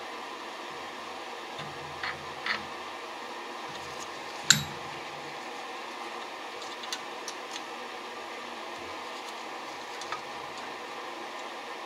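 Small metallic clicks and taps of pliers working a fitting on a carburetor linkage, a few scattered ticks with one sharper click about four and a half seconds in, over a steady background hiss.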